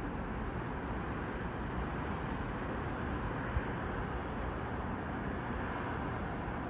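Steady low background noise with no distinct tones, and one soft thump about three and a half seconds in.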